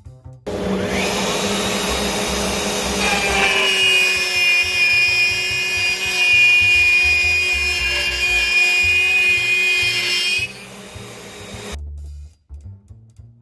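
Small CNC router's spindle running at 18,000 rpm with a 1/4-inch downcut end mill, plunging into a wood board and feeding along a slot at 80 inches per minute. It is a steady cutting noise with a held whine, and it stops near the end. Quiet background music plays underneath.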